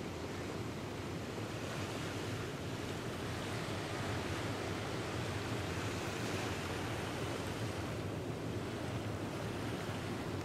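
Surf washing onto a sandy beach, a steady rush of sea noise, with wind on the microphone.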